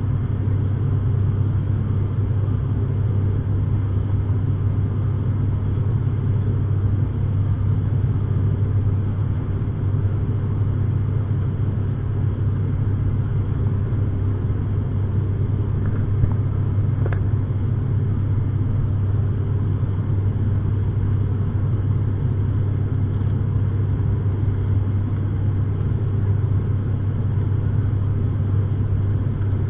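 Steady low drone of an ATR 72's twin turboprop engines and propellers, heard from inside the cabin during the climb after take-off. A faint brief tick comes a little past halfway.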